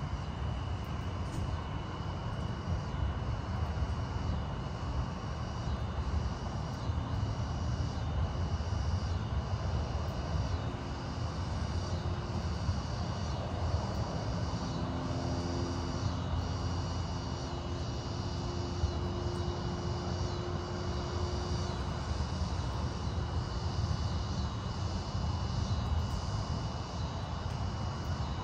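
Outdoor night ambience during a lightning storm: a steady low rumble, with a constant high trill and a regular chirp a little more than once a second above it.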